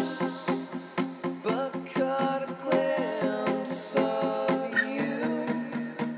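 Music: acoustic guitar strummed in a steady rhythm.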